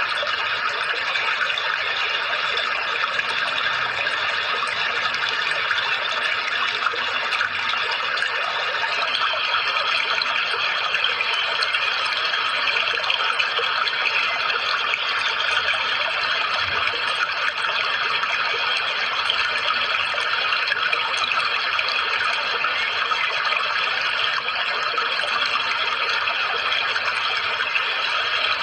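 Steady rushing water, an even unbroken wash of noise with no pauses.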